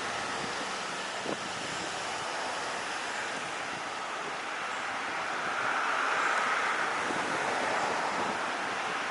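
Strong wind buffeting the microphone over a steady rush of distant jet aircraft engine noise, which swells about six seconds in.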